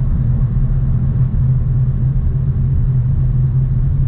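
Steady low rumble of a car driving at speed, heard from inside the cabin: engine and tyre road noise with no sudden events.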